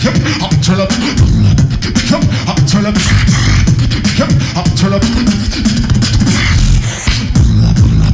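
Fast human beatboxing amplified through a handheld microphone: rapid clicks and snare-like hits over a continuous heavy low bass, with short pitched vocal sounds in between.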